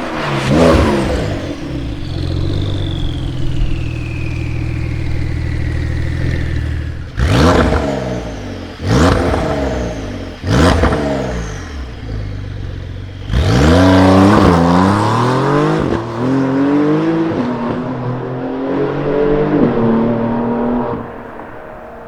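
Porsche 992 Carrera's twin-turbo flat-six through a Capristo valved exhaust: running steadily with a falling turbo whistle, then revved sharply three times, each rev trailed by a whistle, then accelerating hard with the pitch climbing and dropping several times as it changes up, fading away near the end.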